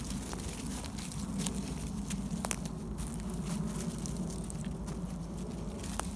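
Footsteps rustling and crunching through dry fallen leaves, with a few sharp crackles of leaves and twigs, over a steady low rumble.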